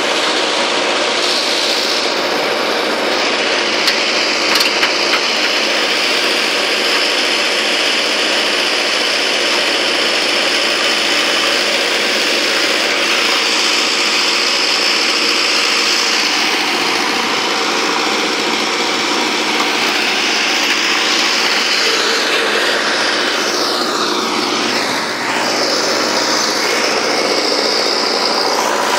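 JCB 3DX backhoe loader's diesel engine running steadily under load as the backhoe digs a trench. A few brief knocks about four to five seconds in.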